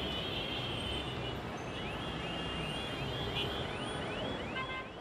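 Dense city street traffic: a steady wash of engine and road noise, with a high horn-like tone at the start and then a rapid run of short rising chirps, about three a second, through the second half.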